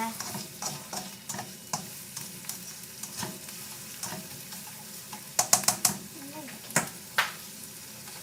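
Garlic, onion and ginger sautéing in hot oil, a steady sizzle under the repeated scrape of a utensil stirring them in the pan. A little past halfway comes a quick run of four sharp clinks of the utensil against the pan, then two more about a second later.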